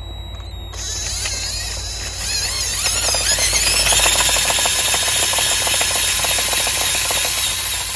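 Small electric motor of a scale-model super seeder whining as it drives the plastic disc rotor into hard-packed dirt, with a fast rattling clatter as the machine vibrates heavily on the hard ground. The whine starts about a second in, wavers in pitch, and gets louder about two seconds in.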